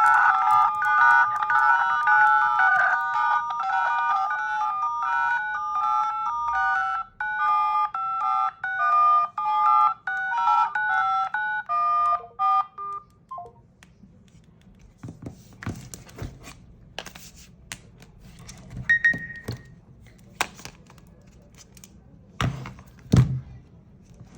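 A mobile phone ringtone playing a repeating electronic melody of short notes, which stops abruptly about halfway through. Scattered clicks and taps follow, with a brief beep and two louder thumps near the end.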